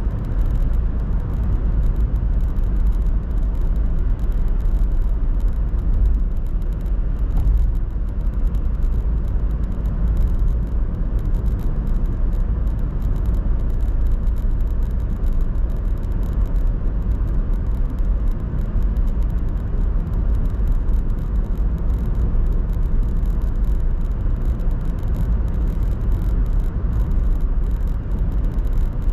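Steady low rumble of a car driving along a tarmac road: engine and tyre noise at an even cruising speed.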